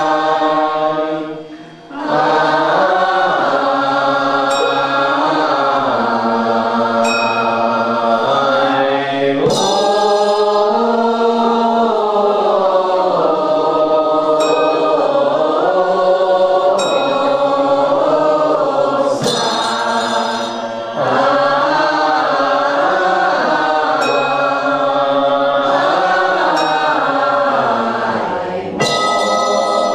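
A group of voices chants a slow Buddhist liturgical hymn in unison, holding long notes that glide slowly in pitch, with short breath pauses. A small metal bell rings about every two and a half seconds to keep the time.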